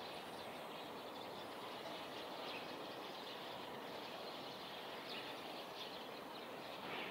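Quiet outdoor ambience with almost no wind: a steady low hiss, with a few faint, brief bird chirps.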